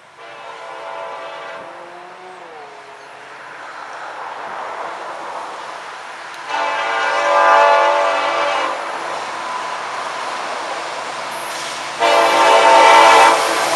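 Freight train's diesel locomotive air horn sounding three blasts for a grade crossing, the first short, the second longest and loudest, the third cutting off near the end. Between blasts the rumble of the locomotives and train grows louder as it approaches.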